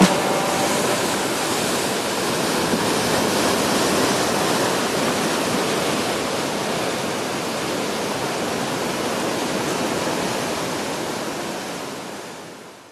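Sea surf washing and foaming over rocks: a steady rushing hiss that fades out over the last couple of seconds.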